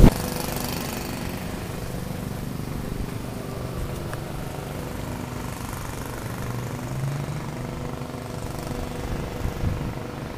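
A motor vehicle's engine running steadily with a low, even rumble.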